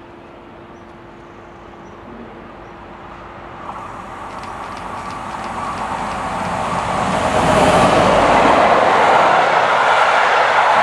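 A train approaching along the line, growing steadily louder over about eight seconds, then running past at full loudness near the end.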